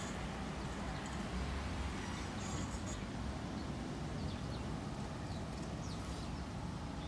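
Steady low outdoor background rumble, with a few faint, short bird chirps about four to six seconds in.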